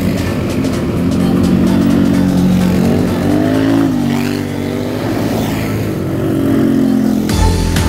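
Several ATV engines running and revving as the quads ride up a gravel road, the engine pitch rising and falling.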